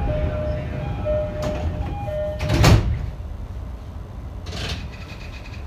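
Train door-closing chime, a two-note high-low tone repeated three times, then the sliding doors shut with a loud thud about two and a half seconds in, over a steady low rumble. A shorter, softer rush of noise follows about two seconds later.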